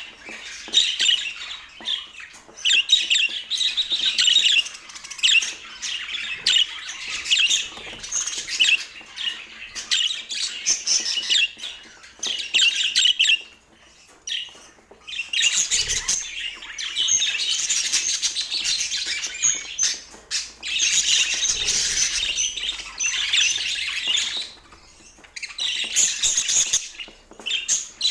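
A flock of budgerigars chattering and chirping in busy bouts, with short lulls about halfway through and again near the end.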